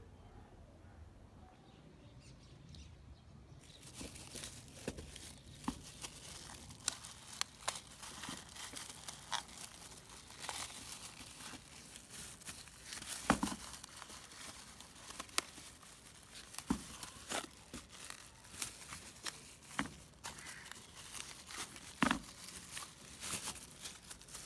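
Near silence, then from about four seconds in, irregular faint clicks, taps and crinkling from hands handling something.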